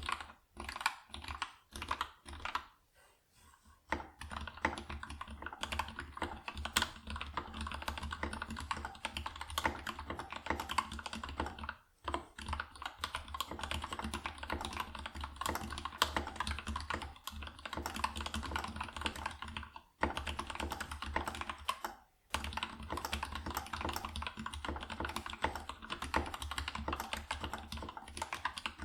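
Kira 96 hotswap mechanical keyboard with Gateron Yellow linear switches lubed with TriboSys 3204 and PBT keycaps, being typed on. A few separate keystrokes at first, then fast continuous typing from about four seconds in, with a few brief pauses.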